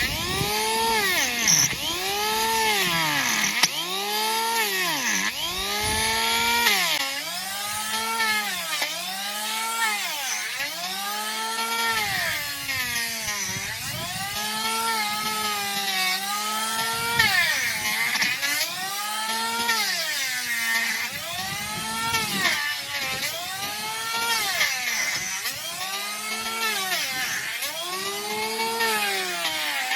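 Handheld electric tool shaving horn off a donkey's overgrown hoof. Its motor whine rises and falls in pitch about once a second as each pass loads and frees it.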